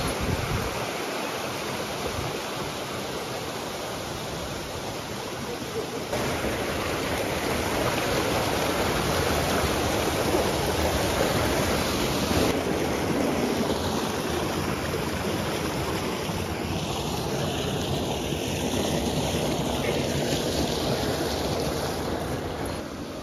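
Mountain river rushing over boulders, a steady roar of water whose tone shifts abruptly a few times.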